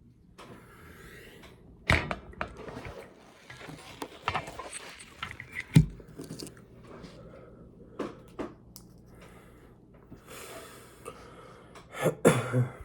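Fast-food packaging being handled on a table: rustling with irregular clicks and knocks, a heavy thud about six seconds in and a cluster of knocks near the end.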